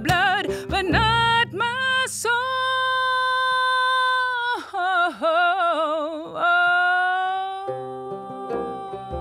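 A woman's voice sings long held notes, one wavering with wide vibrato midway, over a replica 1855 banjo and a frame drum struck with a straw brush. The drum strokes stop about a second and a half in. Low plucked banjo notes come back near the end.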